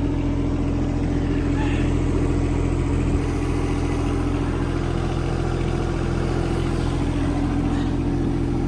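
John Deere 17D mini excavator's Yanmar three-cylinder diesel running steadily at constant speed.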